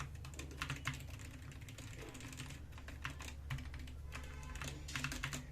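Keys of an SK66S 60% keyboard with optical switches being pressed: an irregular run of light clicks over a low steady hum.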